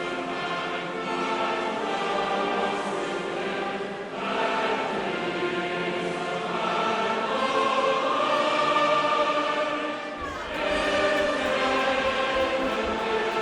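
Background music: a choir singing held notes, with a lower bass part coming in about ten seconds in.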